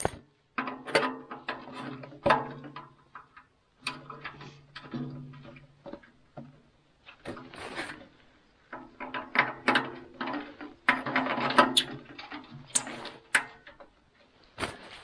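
Metal tent stove and its legs being handled and fitted: clicks, knocks and scraping of metal on metal, in bursts with short pauses, the stove's body ringing faintly under many of them.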